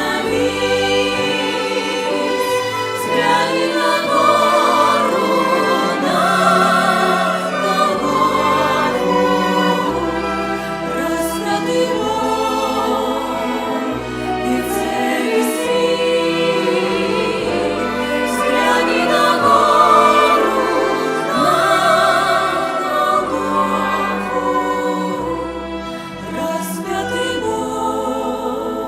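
A church choir singing a Russian-language Christian song, with low bass notes under the voices.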